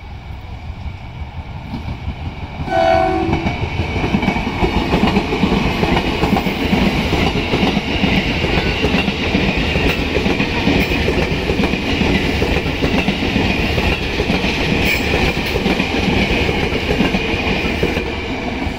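Former Tokyo Metro 6000 series electric commuter train sounding a short horn blast about three seconds in, then running past close by. Its wheels clatter on the rail joints in a loud, steady rush of running noise.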